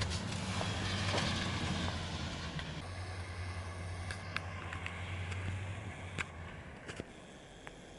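Truck V8 engine, a Chevy 350 in a Toyota FJ40 Land Cruiser, running with a steady low rumble after revving hard to get free. The rumble fades and is gone about six seconds in, with a few faint clicks.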